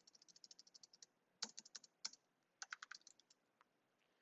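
Faint typing on a computer keyboard: quick runs of key clicks, a fast run in the first second, then two shorter runs, stopping about three seconds in.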